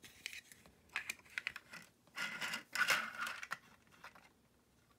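Light clicks, taps and scrapes of a small plastic model truck being picked up and handled on a wooden table, in scattered clusters that stop about four seconds in.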